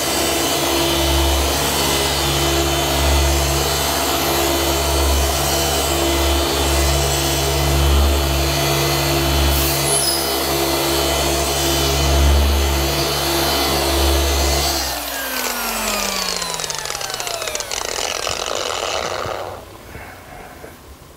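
Rupes dual-action polisher running under heavy, steady pressure while compounding a spot of car paint, its hum wavering in level as it is worked. About fifteen seconds in it is switched off and its pitch falls as it spins down over a few seconds.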